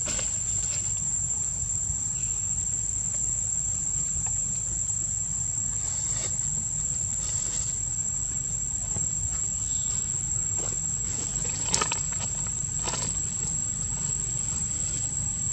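Insects droning in a steady, high-pitched whine over a low, steady rumble, with a few faint clicks in the second half.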